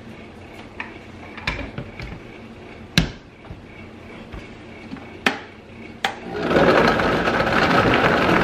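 Plastic knocks and clicks as the lid is pressed onto a Vitamix blender jar. About six seconds in the Vitamix motor starts and runs, getting louder as it begins blending frozen fruit.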